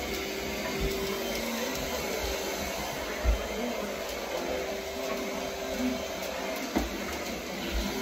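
Vacuum cleaner running steadily with a constant hum, and a couple of dull low knocks, one about three seconds in and one near the end.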